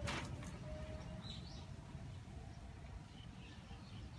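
Quiet outdoor ambience with a low, steady rumble. A brief sharp rustle sounds right at the start, and a faint bird chirp comes about a second and a half in.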